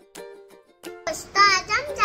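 Plucked ukulele music plays a light tune, then about a second in a child's high voice starts up over the background noise.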